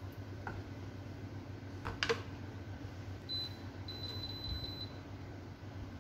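Wooden spatula knocking and scraping in a pan of simmering curry, once faintly about half a second in and more sharply about two seconds in, over a steady low hum. A thin high steady tone sounds for about a second and a half past the middle.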